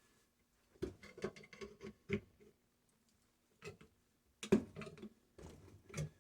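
Scattered clicks and light knocks from hand work stripping a sealed compressor for its copper, in two clusters with a lone knock between.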